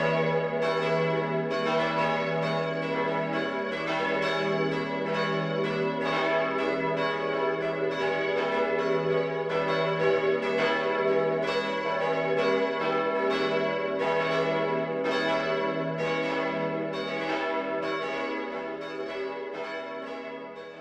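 Church bells of the Peter und Paulskirche in Mössingen ringing together, with a dense run of overlapping strokes and long ringing tones. The peal dies away near the end.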